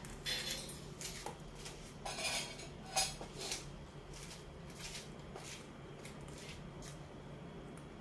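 Senegal parrot chewing and crunching on a small red item held in its foot: irregular crisp clicks and crackles of its beak, busiest in the first half and sparser after.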